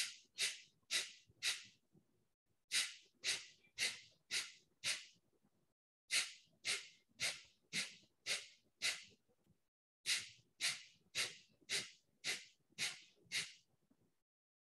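Kapalbhati breathing: short, forceful exhalations through the nose, about two a second. They come in sets of four, five, six and then seven, with a pause of about a second between sets, so the count climbs by one each set.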